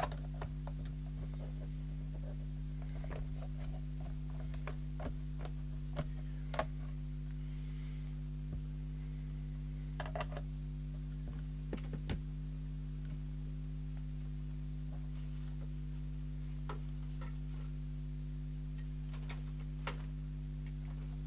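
Scattered light clicks and taps of a spanner working a socket nut on a handheld CB radio's plastic case, over a steady low electrical hum.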